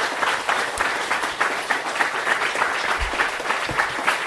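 Audience applauding steadily, dense overlapping hand claps at the close of a lecture.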